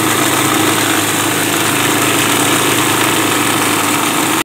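Single-shaft food waste grinder running steadily under load while grinding waste, an even, loud machine noise.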